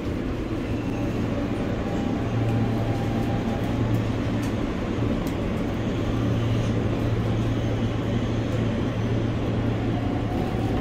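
R160B Siemens subway car running on the track, heard from inside the car: a steady low hum from the motors under an even rumble of wheels on rail, with a few faint clicks.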